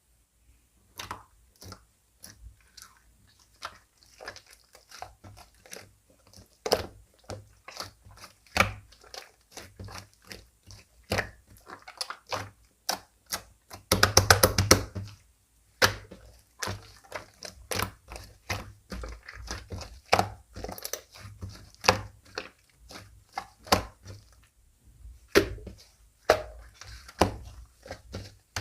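Slime being kneaded, stretched and mixed by hand, giving irregular sticky clicks and pops. About halfway through there is a dense second-long run of rapid crackling pops.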